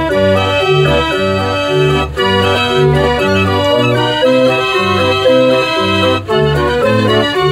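48-key Limonaire Dutch street organ, hand-cranked, playing a tune: pipe melody over a steady alternating bass that changes about twice a second.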